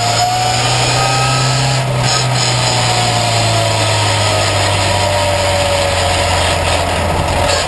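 Ginetta Junior race car heard from inside the cockpit, its engine running hard under a steady drone. A whining note climbs over the first couple of seconds and then slowly drops away.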